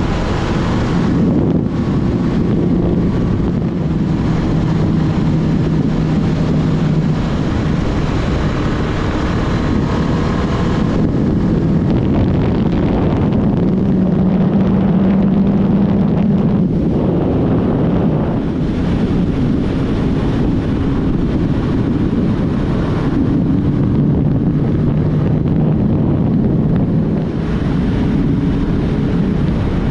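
Rushing wind on the microphone of a Suzuki Hayabusa riding at speed, with the stock inline-four's quiet engine hum underneath, its pitch stepping up and down a few times.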